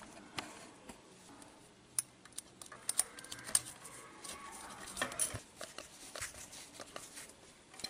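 Scattered small clicks and light metallic taps from hands working wire ring terminals and screws on a power supply's finned metal heatsink, where new power transistors are being mounted.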